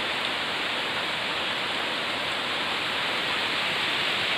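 Steady rain: an even, unbroken hiss with no rise or fall.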